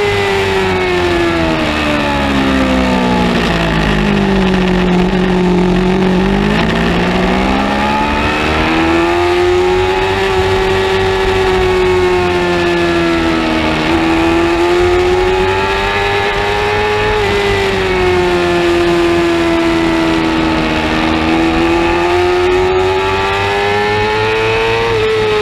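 600cc supersport race motorcycle engine at high revs, heard from onboard. Its note falls steeply over the first few seconds as the rider brakes and downshifts, then climbs back and holds high through a long corner, dipping briefly twice with the throttle, and rises again near the end under acceleration.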